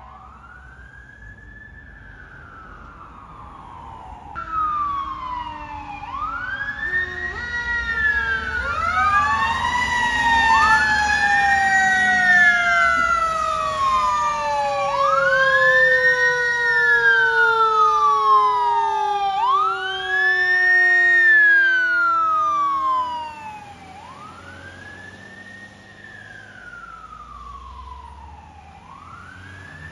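Fire truck sirens wailing: repeated rising-and-falling sweeps, several overlapping, with a slower tone underneath that climbs and then slides steadily down in pitch. The sirens are loudest through the middle and quieter near the end.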